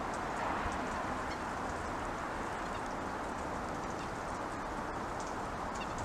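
Steady outdoor background hiss, with faint, scattered light taps from a red-bellied woodpecker pecking at suet in a wire cage feeder.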